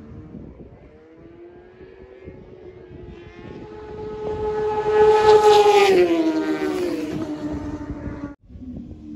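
Racing motorcycle engine passing at speed: it builds over a few seconds, its pitch drops as it goes by about six seconds in, then it fades. The sound cuts off abruptly near the end and another engine note starts.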